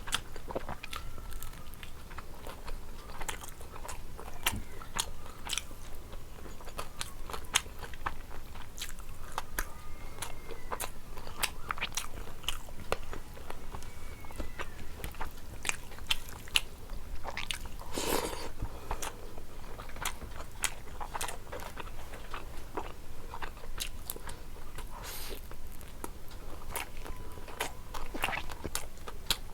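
Close-miked eating: a person biting and chewing food, with many short, sharp mouth clicks throughout.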